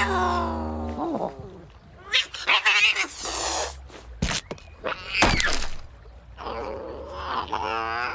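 Cartoon cat yowling and meowing in a string of wavering cries, with a couple of sharp knocks around the middle.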